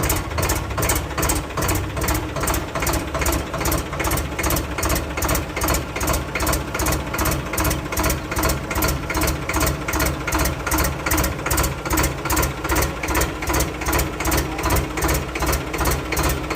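Diesel engine idling steadily with a regular pulsing beat, about three pulses a second.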